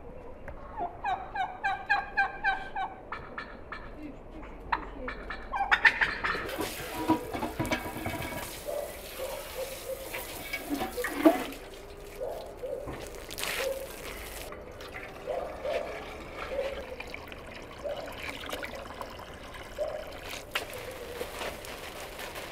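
A domestic fowl calls in a quick run of about eight evenly spaced notes. Then water from a garden hose runs and splashes into a metal samovar and onto plants, loud for several seconds and softer after that. There is one sharp knock about halfway through, and birds make short calls now and then.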